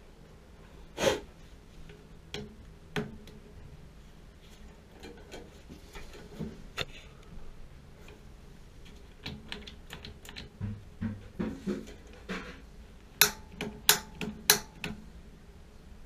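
Scattered clicks and small knocks of gloved hands working at a gas water heater's control valve and its wiring, with a louder click about a second in and three sharp clicks in quick succession near the end.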